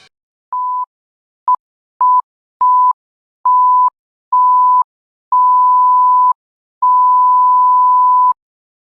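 Electronic censor bleep sound effect: a pure single-pitch beep near 1 kHz sounded eight times with silence between, the beeps growing longer from very short blips to a last one of about a second and a half.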